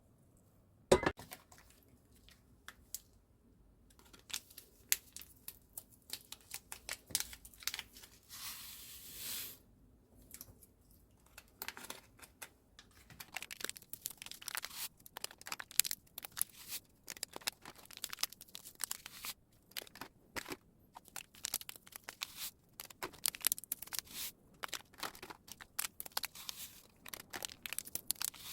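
Hands handling things: crinkling and tearing with many small irregular clicks and taps, growing busier in the second half, and a short hiss about nine seconds in.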